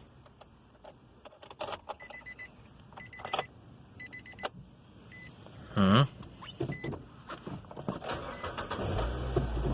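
Car cabin sounds from a 2012 Nissan Versa: scattered clicks of switches and controls, and a string of short dashboard warning beeps. A steady low hum sets in near the end.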